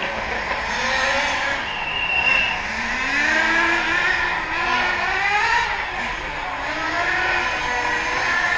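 Several radio-controlled racing motorcycles running around the circuit, their motors whining over one another, each pitch rising and falling as the bikes accelerate and brake through the corners.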